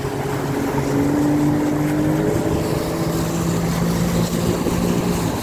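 Outboard motor driving a small boat at speed, running steadily under load; its pitch rises a little over the first two seconds, then holds.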